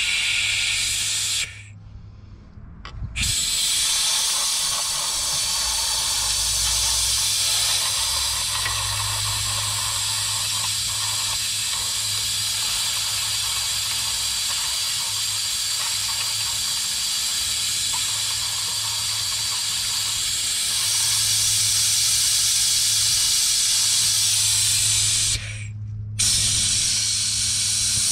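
Loud steady hissing with a low hum beneath it. It cuts out briefly about one and a half seconds in and again near the end, and is slightly louder shortly before the second break.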